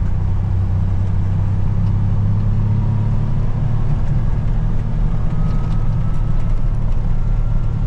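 A vehicle engine running steadily with a constant low hum.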